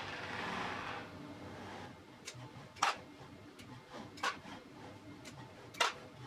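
Sharp mechanical clicks, about one every second or so, from a robot arm's gripper working as it picks small M6 screws and nuts out of a bin, with a short rushing noise in the first second.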